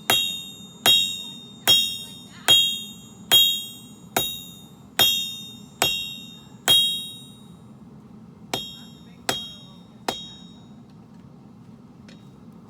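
Hand-forging hammer blows on steel over an anvil, each strike ringing out clearly: nine evenly spaced blows a little more than one a second, then a short pause and three lighter blows before it stops.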